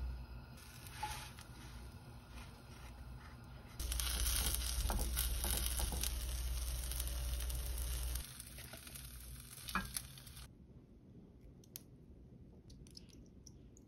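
Quesadilla sizzling in a frying pan, much louder for a few seconds in the middle, with a few sharp taps of tongs against the pan. Near the end the sizzle drops away, leaving faint clicks.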